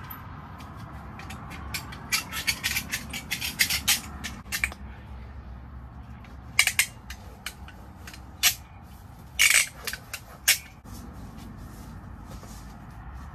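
Hand work on plywood pieces and tools: a quick run of small clicks and taps, then a few separate louder knocks and clatters, over a steady low background hum.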